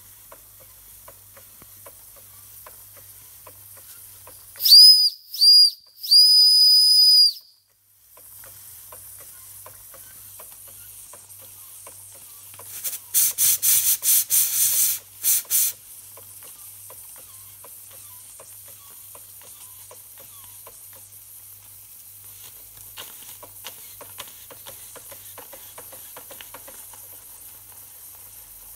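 Schoenner toy live steam engine running with a faint steady ticking of its working parts. About five seconds in, its steam whistle blows three times: two short toots, then a longer one. Around thirteen seconds in comes a quick series of loud, short steam hisses.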